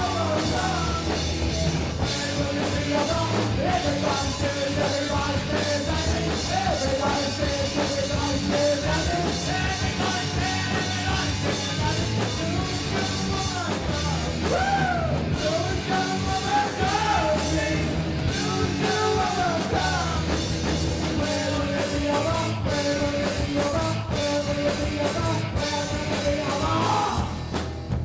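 Rock band playing live, with a lead vocal sung over the full band.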